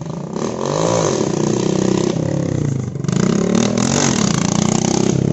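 Small Yamaha dirt bike engine revving as the bike rides toward the camera, its pitch rising and dropping several times. It grows louder over the first second and passes close by about four seconds in.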